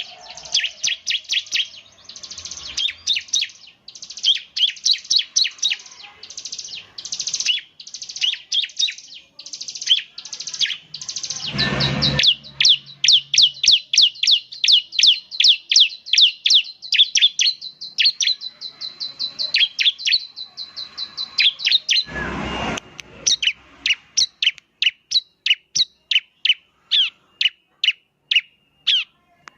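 Bar-winged prinia (ciblek) singing: fast runs of sharp, high notes in short bursts, then a long rapid trill over a held high tone, ending in evenly spaced single chips two or three a second. Two dull thumps, about twelve seconds and about twenty-two seconds in.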